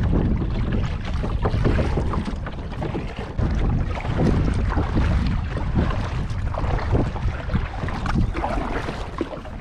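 Wind buffeting the microphone over water sounds while a kayak is paddled, with irregular splashes and knocks through the steady rush.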